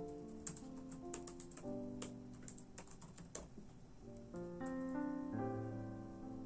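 Typing on a computer keyboard: a run of quick key clicks in the first half, thinning out later, over soft piano music that plays throughout.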